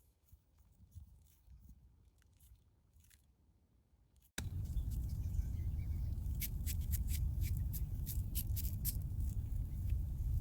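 Faint light ticks, then from about four seconds in a sudden steady low rumble like wind on the microphone, with a run of sharp clicks and crackles over it.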